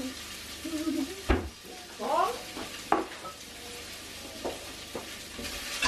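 Food sizzling in a pan on a gas hob, a steady frying hiss. A few sharp clinks of a utensil against the pan, and a short rising voice-like sound about two seconds in.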